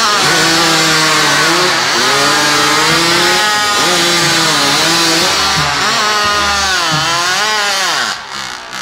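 Several chainsaws running at full throttle, cutting through logs. Their engine pitch sags and recovers again and again as the chains bite into the wood. The saws fall away shortly before the end.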